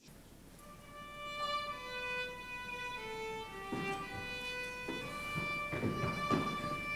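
Violin playing a slow melody of long held notes, fading in over the first second. A few soft knocks sound under it in the second half.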